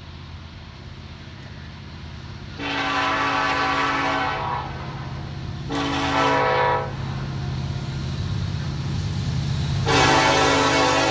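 Diesel locomotive air horn on a Norfolk Southern intermodal train sounding three blasts, long, short, then long, each a multi-note chord. Under the horn, a steady low rumble of the train's diesel engines grows louder toward the end as the train approaches.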